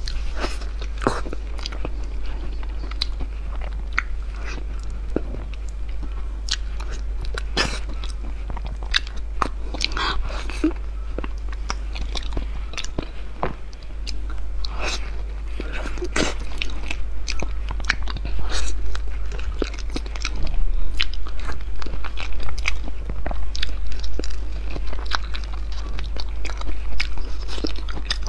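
Close-miked eating of ripe durian: chewing and mouth sounds with many small clicks, getting louder in the last third, over a steady low hum.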